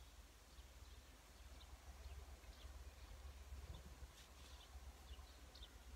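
Near silence: a faint low rumble of wind on the microphone, with a few faint short high ticks in the second half.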